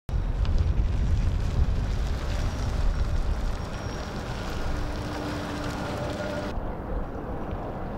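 Volvo FL Electric truck moving close by: a low rumbling noise of wind on the microphone and road noise, with a faint steady whine and no combustion engine. About six and a half seconds in, the sound abruptly turns duller.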